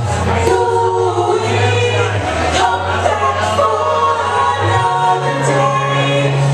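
Live music: several layered vocal harmonies held in a choir-like, a cappella style over a deep sustained bass note that steps to a new pitch about every two seconds.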